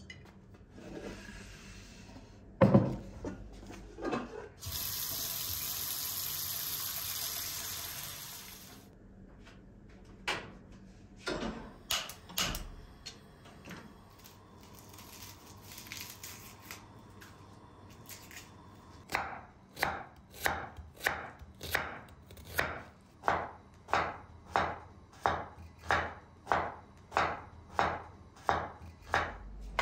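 Water running from a tap for about four seconds, with a few knocks and clicks of kitchen work around it. After that comes a steady run of knife chops on a cutting board, about one and a half a second.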